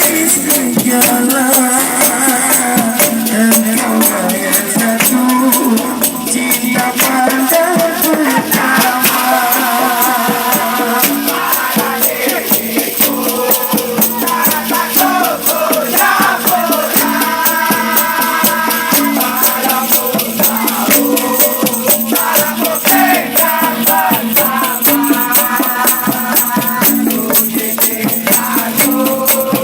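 Music: a song carried by a fast, steady shaker rhythm under a wavering melody line.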